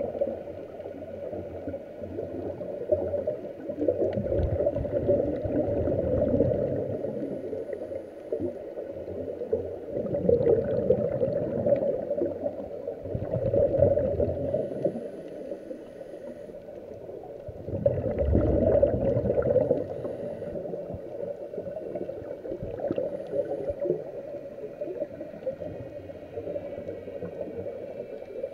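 Scuba divers' regulator exhaust bubbling underwater, heard muffled through a waterproof camera housing. It swells loudly with each exhalation, several times a few seconds apart.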